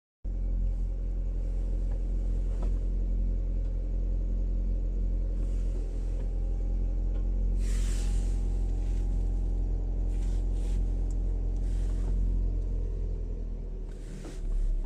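First-generation Lada Largus engine idling with a steady low rumble and hum, the extraneous noise that goes away when the clutch pedal is pressed, which the owner puts down to something in the clutch. Near the end the rumble thins, with a brief swell just before it stops.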